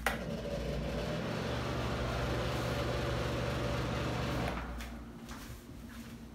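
A click, then a bathroom exhaust fan running with a steady hum and whir. It drops away after about four and a half seconds.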